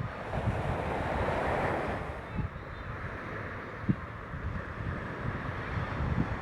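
Fireworks booming, a run of low thuds with one sharper bang about four seconds in, under a rushing swell of noise in the first two seconds and wind buffeting the microphone.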